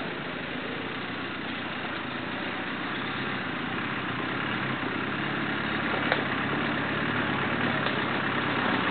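Land Rover Discovery 4x4's engine running at low speed as it crawls over a rocky dirt track, slowly growing louder as it approaches. A single short click about six seconds in.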